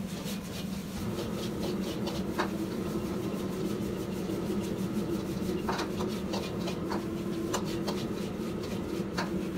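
Fried rice being stir-fried: a metal spatula scraping and knocking against a wok in short irregular strokes, over a steady low hum.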